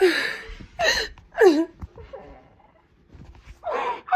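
A woman sobbing: gasping, catching breaths broken by short cries that fall in pitch, three in quick succession, a pause, then more near the end.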